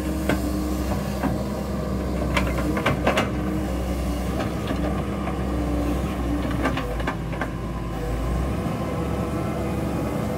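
Doosan DX140W wheeled excavator's diesel engine running steadily while it digs, with scattered sharp clanks and knocks from the bucket working the soil, a cluster about three seconds in and another about seven seconds in. The engine's low hum drops a little near the end.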